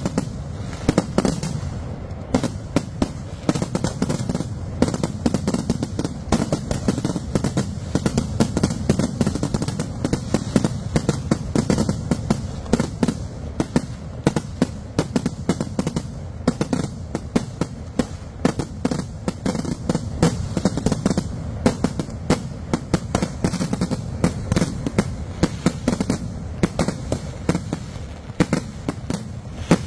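Fireworks display (vedikkettu) going off as a continuous, rapid barrage of bangs and crackles, many reports each second, with a low rumble beneath. The barrage keeps up without a break.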